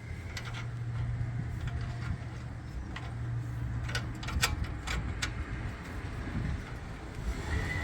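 Scattered light metallic clicks of a hand tool working an exhaust-clamp nut that won't tighten, its threads likely stripped. A steady low hum runs under them.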